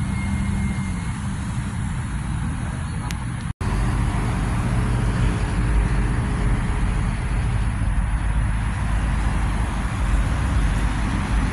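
Road traffic passing close by on a multi-lane road: a steady run of car and SUV engine and tyre noise, with a low rumble. The sound cuts out for an instant about three and a half seconds in.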